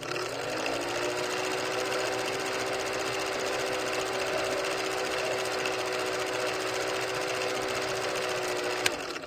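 Film projector running, as a sound effect: a fast, even mechanical clatter with a hum that rises in pitch as it starts up over the first second, then runs steadily. A sharp click sounds just before it stops.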